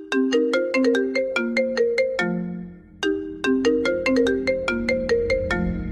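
Phone ringtone: a short melody of quick, struck notes that ring and fade, heard twice in a row with a held low note between the two.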